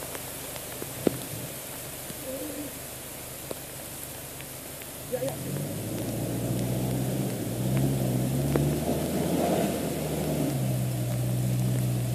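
Rain hissing steadily, with a sharp tap about a second in. About halfway through, a Toyota Hilux pickup's engine comes in, working through a deep mud track, and it pulls harder and louder about two seconds later.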